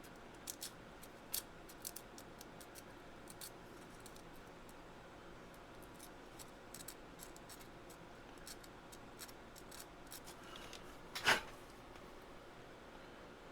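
Small, irregular scratching and ticking of sandpaper being rubbed over the tiny metal contacts of a rotary encoder to clean off discoloration, with one louder scrape near the end.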